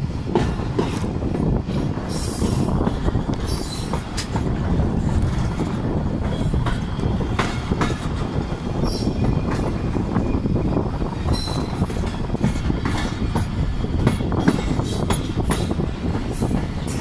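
Tezgam Express passenger coaches running along the track, heard from an open coach window: a steady heavy rumble of wheels on rail with irregular clicks and clanks, and a few brief high squeals.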